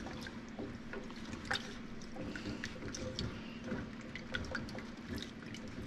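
A utensil stirring salted water in a pot to dissolve the salt: irregular small clicks and scrapes against the pot with light sloshing of the water.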